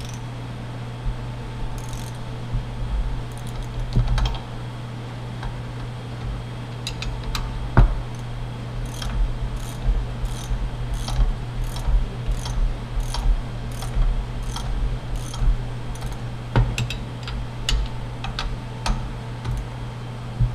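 Ratcheting wrench clicking in short runs, about two a second through the middle, as the nuts on the threaded tie rods of a rebuilt double rod end hydraulic cylinder are tightened to draw the end caps down so the new seals seat.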